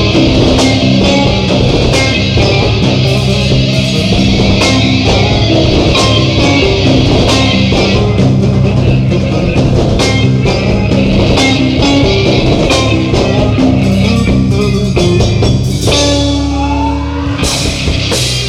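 Stoner rock band playing live: distorted electric guitar, bass and drum kit in a loud instrumental passage. About 16 s in the drums drop out under a held low note with a sliding note above it, and the kit comes back in near the end.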